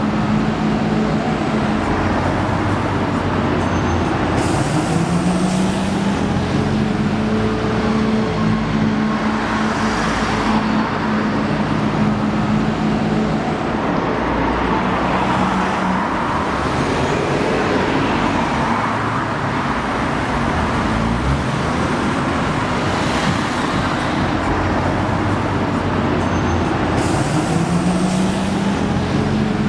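City road traffic: a steady wash of passing cars and heavier vehicles with engines idling and pulling away. An engine note rises a few seconds in and again near the end, with short hisses now and then.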